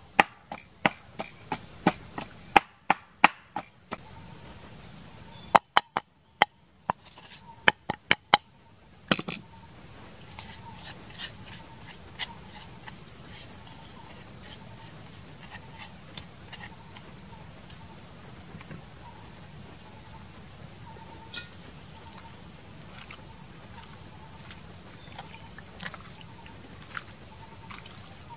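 Wooden pestle pounding in a mortar, about three sharp knocks a second for the first four seconds, then a few more knocks between about six and nine seconds in. After that only faint handling sounds are left over a steady drone of insects.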